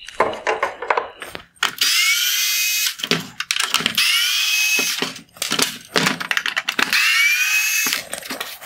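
Cordless electric screwdriver backing out T20 Torx screws from a plastic headlight housing: the motor whines in several short runs of about a second each, winding up in pitch at the start of each run, with sharp clicks between the runs.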